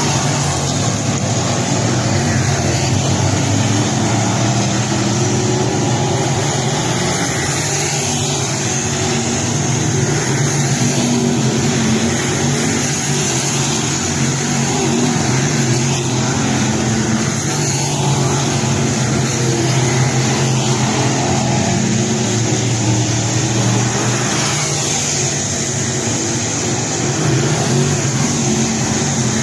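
A field of dirt late model race cars at racing speed on a dirt oval, their V8 engines running together in a loud, steady din that swells a little as cars pass.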